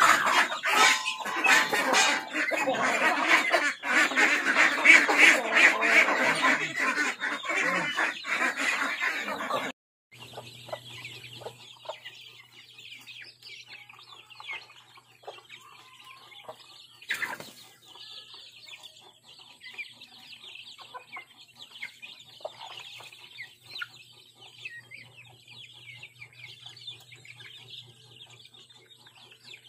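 A large backyard flock of chickens and ducks clucking and calling, loud and dense for about ten seconds. It then cuts abruptly to a much quieter stretch of chicks peeping in high, thin chirps over a low steady hum, with one louder call partway through.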